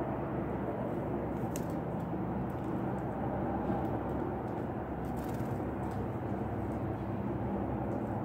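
Steady low outdoor hum from traffic or machinery, with a couple of faint brief ticks.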